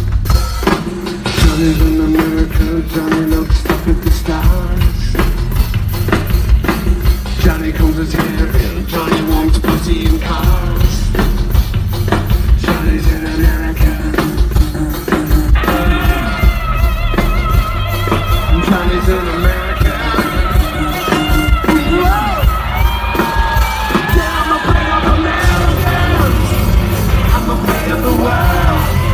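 Live industrial rock band playing loud over a steady, driving drum beat with electric guitar. A man's voice sings into the microphone in the second half.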